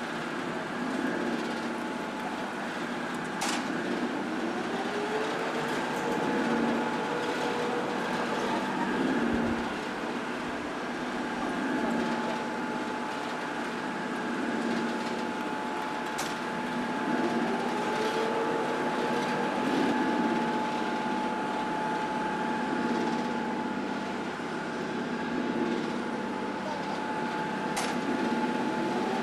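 Machinery of an auger pile-boring rig running steadily while drilling a pile hole. A whine rises in pitch and then holds, returning about every twelve seconds, over a steady tone and a few sharp clicks.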